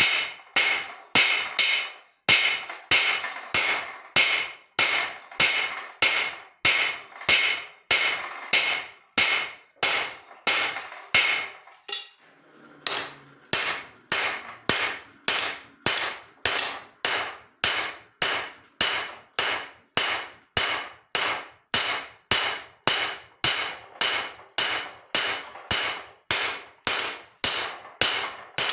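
Hand hammer beating leaf-spring steel on an anvil, a steady rhythm of about two ringing blows a second, with a brief pause about twelve seconds in.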